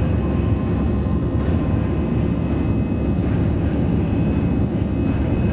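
Airbus A321 cabin noise in the initial climb after takeoff: a steady, deep rumble of the engines at climb power and the airflow, with a faint steady whine above it.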